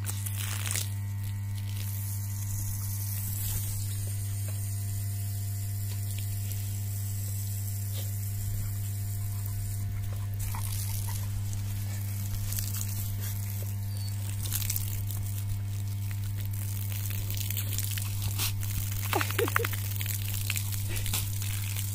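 Steady low electrical hum with a row of fainter steady overtones, unchanging throughout. A few soft crackles come near the end.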